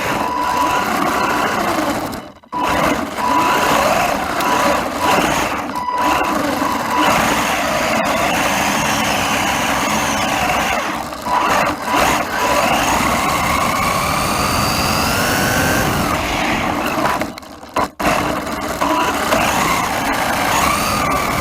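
Brushed 550 electric motor and drivetrain of a Wltoys 144001 1/14-scale RC car whining as it is driven, the pitch rising and falling with the throttle. The sound breaks off briefly twice, about two and a half seconds in and again near the end.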